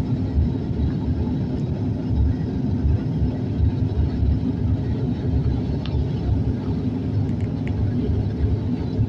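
Steady low rumble of a Bombardier airliner's engines and airflow heard inside the cabin, with a steady hum under it.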